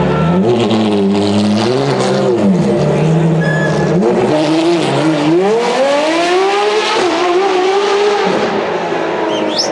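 Ferrari FXX-K EVO's naturally aspirated V12 engine revving in short rises and falls, then accelerating hard in a long rising pull about four seconds in, easing off near the end as the car moves away.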